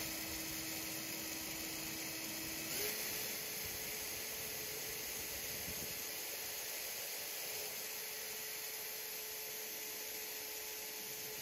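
Electric drill running steadily while drilling a small pilot hole in sheet metal, its motor whine stepping up in pitch about three seconds in and then holding.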